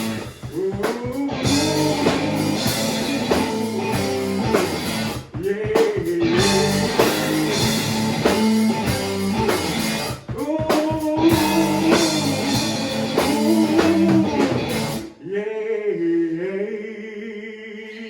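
Band playing a rock song with singing, guitar and drums, ending together about fifteen seconds in, after which a single voice carries on alone.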